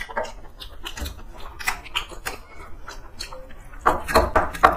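Two people eating rice and curry by hand from steel plates: a run of small clicks and taps as fingers mix and scoop rice against the metal, with wet chewing and mouth noises. A louder, denser patch of clicks comes about four seconds in.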